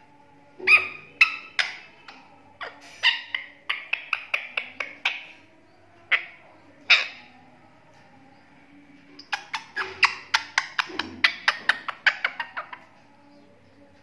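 Indian ringneck parakeet giving short, harsh squawks in quick runs, the sound of the bird in an angry mood. The longest run comes near the end.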